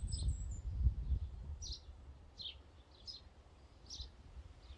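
Birdsong: a small bird repeating short, high, falling chirps about once a second. A low rumble fades out over the first second or so.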